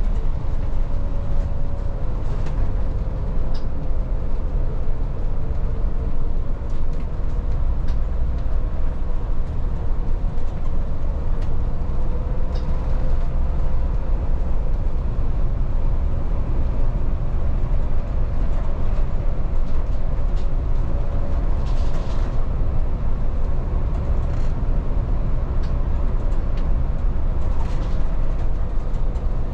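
Volvo 8900 city bus driving, heard from on board: a steady low engine and road rumble with a faint whine that drifts slightly in pitch, and a few light rattles now and then.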